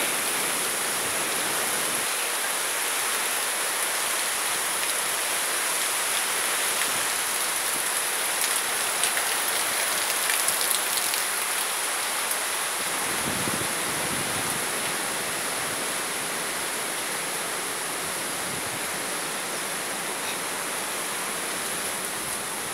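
Steady rushing of a river in full flow through a rocky gorge, heard as an even, constant noise that eases slightly in the second half.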